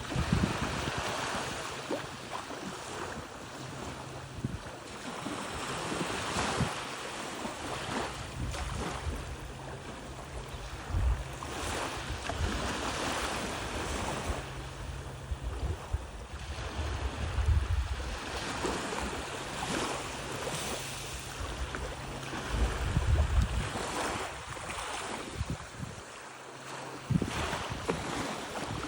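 Surf washing onto a beach, its hiss swelling and fading every few seconds, with wind gusting on the microphone as a low rumble.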